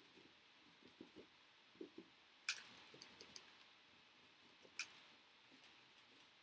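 Near silence: room tone with a few faint taps and two sharp clicks, about two and a half and five seconds in.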